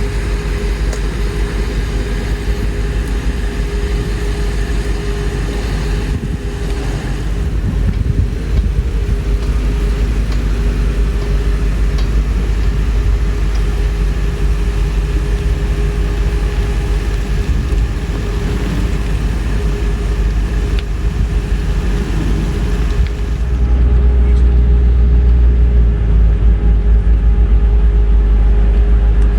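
Land Rover Discovery II engine running as the truck drives off-road, a continuous low rumble with a steady hum through it. About 23 seconds in, the low rumble becomes louder.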